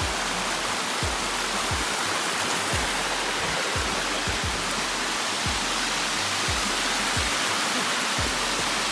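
Rushing water of a mountain stream: a steady, loud hiss.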